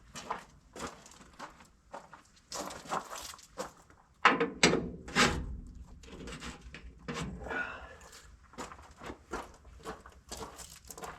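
Irregular knocks and clanks of hand tools and metal parts as a combine corn head's knife assembly is worked on, with a cluster of louder bangs about four to five seconds in and a brief scrape near eight seconds.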